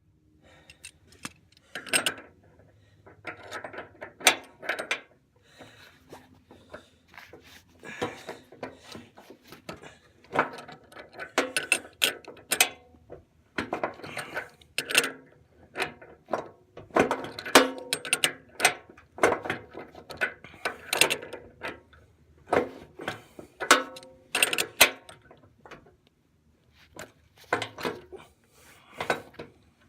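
Hand tools working on the metal skid shoe brackets of a snow plow: irregular clicks, clanks and ratcheting, with a faint low hum underneath.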